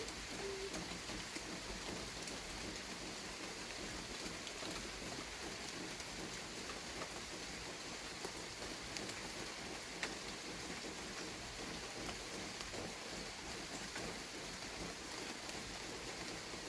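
Steady rain falling, an even hiss with many sharp taps of single drops scattered through it.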